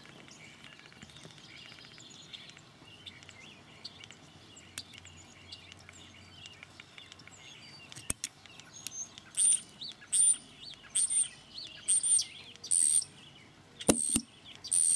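A songbird outside chirping, faintly at first, then from about nine seconds in with short, high chirps about once a second. A few sharp metal clicks sound from the M1 carbine bolt's extractor and ejector being worked with pliers and a small screwdriver: one about eight seconds in and a close pair near the end.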